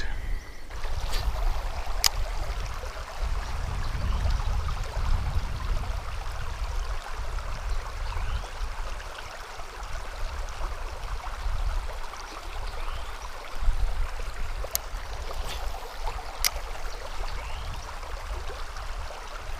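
River water running steadily, an even rushing hiss with a low, uneven rumble underneath. A few sharp clicks stand out, one about two seconds in and two near the end.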